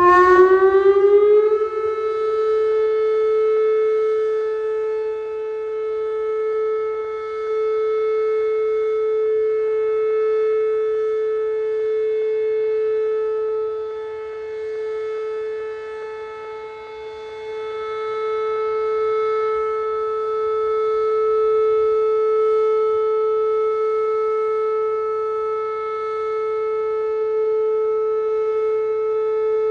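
Whelen WPS-2810 electronic outdoor warning siren sounding its steady Alert tone. It rises quickly in pitch about a second into the sound, then holds one steady tone that slowly swells and fades in loudness.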